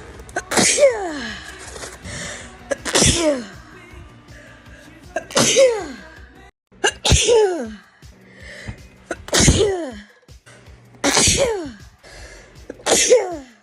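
A sneezing fit: seven sneezes in quick succession, roughly two seconds apart, each a loud 'achoo' whose voiced part drops in pitch.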